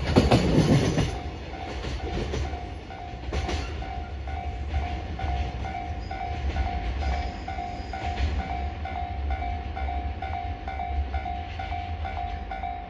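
The tail of a freight train of container wagons passing loudly, then fading within the first second or so to a low rumble with occasional wheel clicks on rail joints. A level crossing warning bell keeps dinging, about three times a second.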